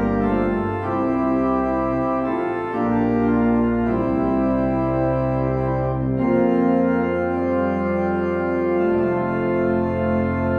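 Church organ playing slow, sustained chords over a deep bass line, the harmony moving to a new chord every second or two.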